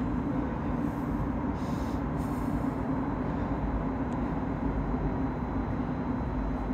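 Steady low rumble and hum of an underground metro station, with a constant drone and no rise or fall in level.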